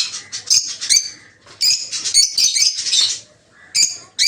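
Peach-faced lovebirds chirping in loud bursts of quick, shrill, repeated notes, with short pauses between bursts; the longest burst falls in the middle.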